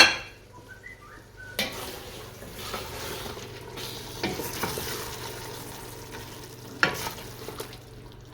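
Mutton and masala sizzling as they are fried and stirred in a cooking pot, with tomatoes and mint just added. The sizzle picks up about a second and a half in, and a sharp knock comes about seven seconds in.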